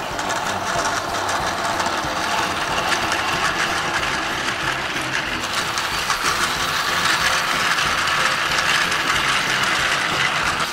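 Battery-powered Plarail toy train running on plastic track: the small electric motor whirring, with a fast clicking rattle from the wheels and gearing, getting louder as the train passes close about seven seconds in.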